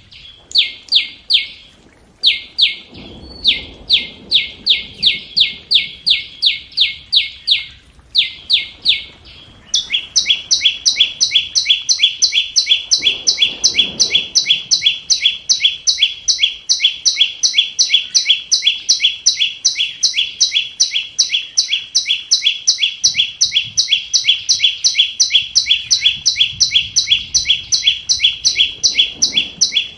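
Flowerpecker ('chim sâu') lure call: a fast, even train of sharp, high chip notes, about four a second, with brief breaks. About ten seconds in, a second, higher series joins and the two run on together without a break.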